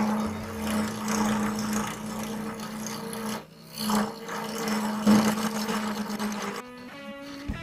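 Jet 1221VS wood lathe running with a steady hum while a steel turning tool cuts into the face of the spinning wooden blank, giving a continuous rasping scrape. The cut lets up briefly about three and a half seconds in and eases off near the end.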